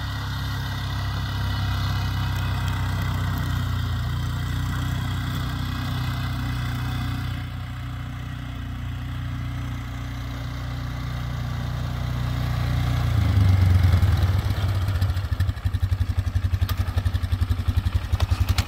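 Polaris Sportsman 500 6x6's single-cylinder four-stroke engine running as the ATV drives on dirt, growing louder as it comes near about 13 seconds in. Near the end it settles into idling close by with a steady, even pulsing beat.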